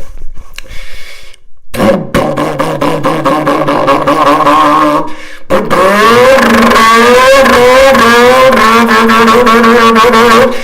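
A man imitating a revving car engine with his voice through a toilet paper roll. He makes a buzzing, pitched engine sound in two runs, with a short break about five seconds in; in the second, longer run the pitch wavers up and down like an engine being revved.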